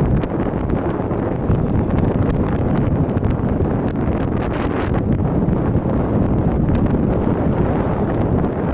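Wind buffeting the microphone: a steady, loud rush heaviest in the low end.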